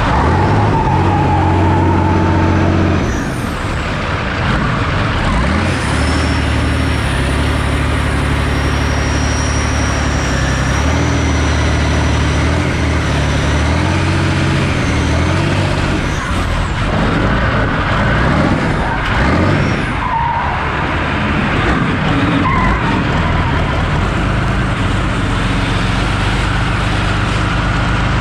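Large engine of a stripped-down show car running hard, revs rising and falling in steps while the rear tyres spin and skid through burnouts and doughnuts.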